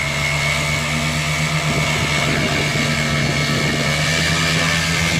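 Paramotor engine and propeller running steadily at a constant pitch, with a high whine over the engine note.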